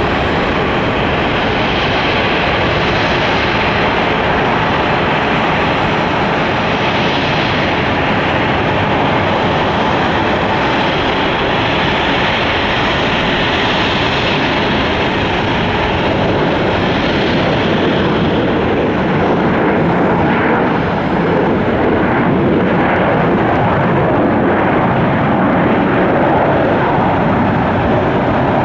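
Boeing 737-900ER's CFM56 jet engines running with a steady, loud rush of engine noise.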